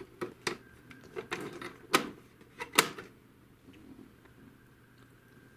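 Plastic clicks and snaps of the HP DeskJet 2130's underside paper-path cover being unlatched and lifted off by hand. About eight sharp clicks come in the first three seconds, the loudest about two seconds in and near three seconds, then only softer handling.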